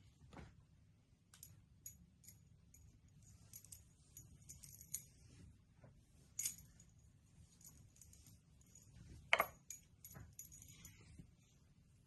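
Scattered light clicks and clinks of small hard objects being handled, with a louder knock about nine seconds in.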